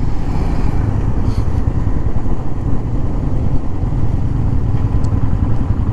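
Motorcycle engine running steadily under way, heard from on board the bike, a low even rumble with road noise.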